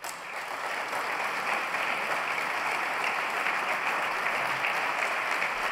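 Audience applauding: many people clapping together, starting at once and holding steady.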